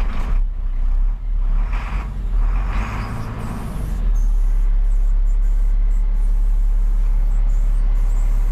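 2000 International 4900 plow truck's diesel engine, freshly started, running unevenly for the first few seconds and then settling at about four seconds in to a steady idle, heard from inside the cab.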